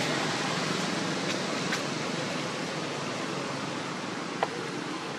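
Steady outdoor background hiss, with two or three faint, short clicks.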